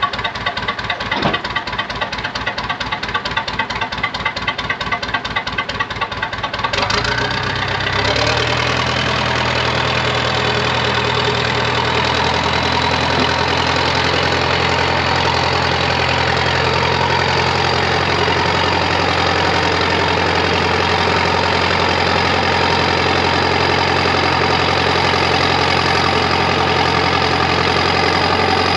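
Early-1980s International TD8E bulldozer's diesel engine, first idling with an even, rapid pulse of firing strokes. About seven seconds in, the engine is throttled up and settles into a steady, higher-speed run.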